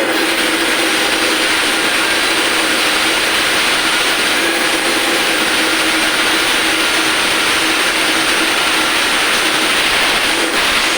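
Fish-cutting machine running steadily, a constant motor hum under a loud even hiss.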